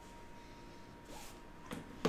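Faint handling sounds of a trading card in a clear plastic holder being moved and set down: a brief soft rustle about a second in and a light tap near the end.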